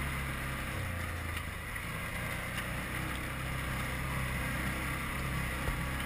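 Quad bike (ATV) engine running steadily while riding over a snowy track, with a slight change in its low note about a second in.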